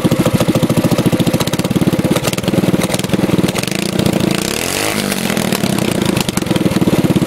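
Predator 212cc single-cylinder four-stroke engine with a stage one intake kit (pod air filter, rejetted carburettor) running at idle. About halfway through, the throttle is opened by hand and the revs rise, then fall back to a steady idle.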